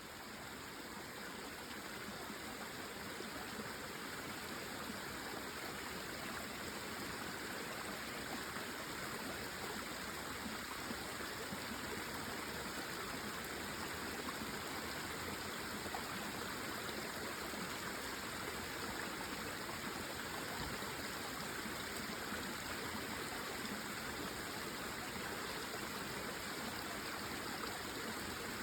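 Small waterfall and stream: water pouring and splashing steadily.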